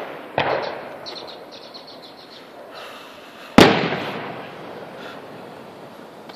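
Aerial fireworks shells bursting: a bang about half a second in followed by a spell of small crackles, then a louder boom a few seconds in that fades out slowly.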